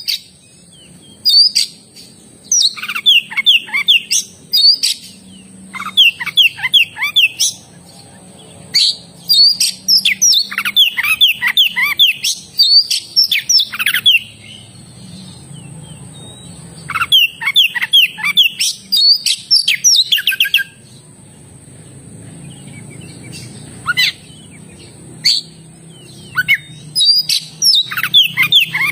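Oriental magpie-robin (kacer) in full song: repeated phrases of rapid, downward-sweeping whistled notes, each burst lasting a second or two with short pauses between.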